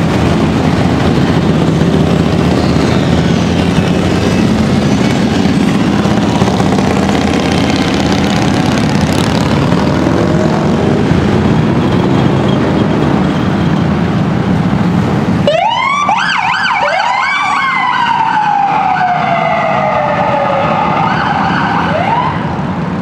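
Harley-Davidson touring motorcycles in a procession pass one after another with their engines running. About two-thirds of the way through, this gives way abruptly to several police car sirens wailing over one another, with rising and falling sweeps and one long falling wail.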